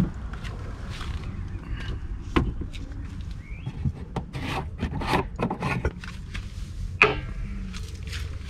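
Objects being handled: a series of irregular clicks and knocks with some rubbing, the sharpest knock about seven seconds in, over a steady low rumble.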